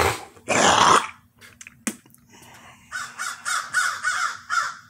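A sharp thump, then crows cawing: one loud harsh caw about half a second in, and a quick series of about six caws near the end.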